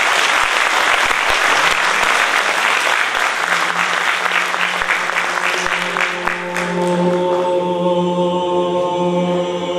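Audience applause that thins out and stops about seven seconds in. Under it, a men's choir takes up a steady low note, then holds a sustained chord of several notes.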